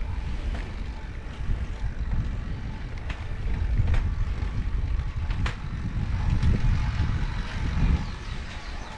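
Wind rumbling on the microphone: an uneven low buffeting that swells and fades, with a few faint clicks.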